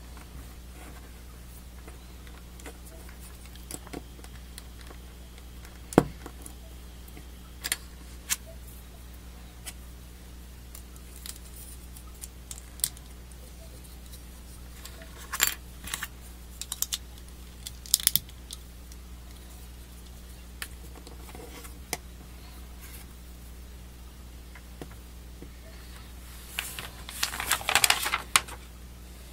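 Plastic leg parts of a Master Grade Gundam AGE-2 model kit clicking and snapping as they are handled and pressed together: scattered single clicks, a few short flurries, and a dense run of clicks near the end, over a low steady hum.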